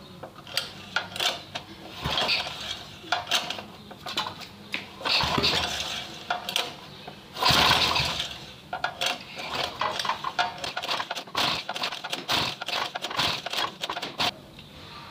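Metal tools clicking and clinking against the parts of a small petrol water-pump engine worked on by hand, with irregular clicks and knocks and a few longer rasps, the loudest about seven and a half seconds in.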